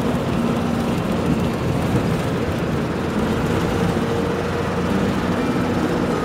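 Moving city bus heard from inside the cabin: a steady rumble of engine and road noise, with a faint engine hum.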